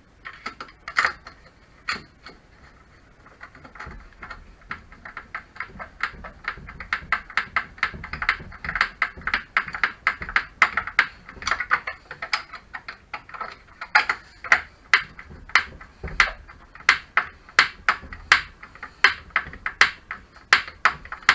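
Hand screwdriver driving long screws into a Tacx Flux trainer's housing: a long run of sharp clicks, about three or four a second, louder in the second half.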